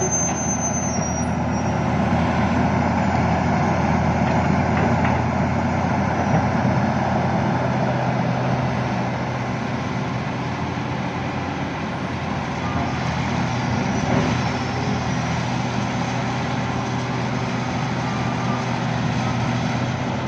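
Heavy diesel engine of road-building equipment running steadily under light load, a low, even drone.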